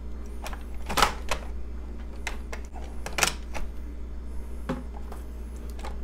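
Hard plastic clicks and knocks of a Dyson cordless stick vacuum being handled in its wall-mounted charging dock: a few scattered sharp taps, the loudest about three seconds in.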